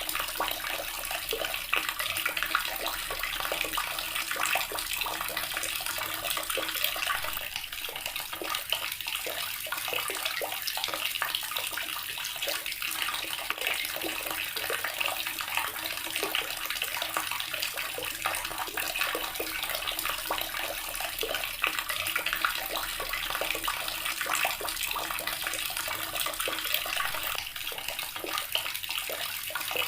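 Water tap running, with a steady stream splashing and rushing that does not change.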